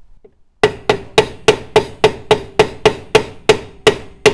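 A hammer striking metal in a steady series, about three blows a second, starting under a second in, driving the kingpin down into the MG TC's front axle. A ringing tone from the struck metal carries on between the blows.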